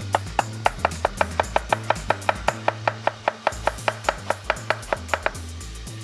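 Chef's knife shredding a head of lettuce on a wooden cutting board: quick, even chops about five a second that stop shortly before the end, over background music.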